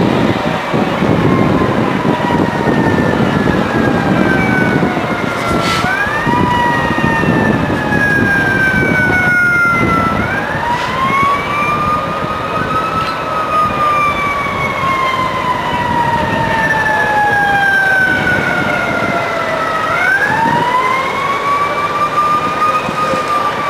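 Fire engine sirens wailing and overlapping one another. Each rises quickly about three times and then slides slowly down over several seconds, over a steady low rumble of street and engine noise.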